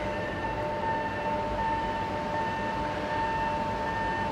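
Yamagata Shinkansen E8 series train pulling into the station platform: a low rumble under a steady high-pitched whine.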